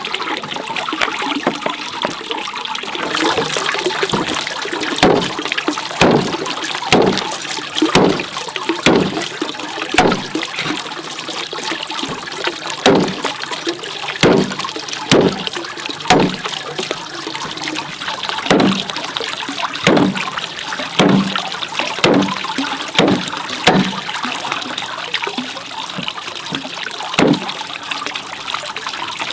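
Water running or trickling steadily, with sharp knocks about once a second over most of the stretch.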